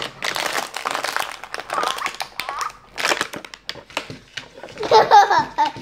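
Little Live Pets electronic toy puppy making its recorded dog sounds: a run of short noisy bursts, then a pitched, yip-like sound near the end.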